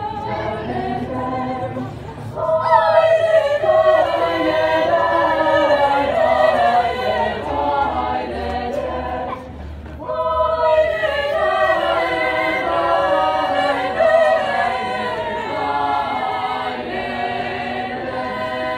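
Girls' choir singing a cappella in several voice parts. A louder phrase comes in about two and a half seconds in, and there is a short break between phrases about halfway through.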